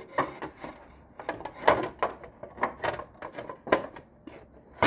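Irregular clicks and knocks of a hard plastic cover being flexed and pressed into place over an exercise bike's flywheel, with one sharp snap near the end.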